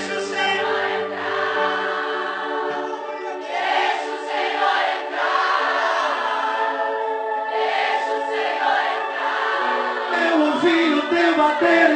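Many voices singing a slow worship song together over long held chords; the low bass drops out about two seconds in.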